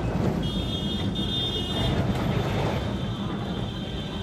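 Kolkata tram running, heard from inside the passenger car: a steady low rumble, with a thin high whine over roughly the first two seconds.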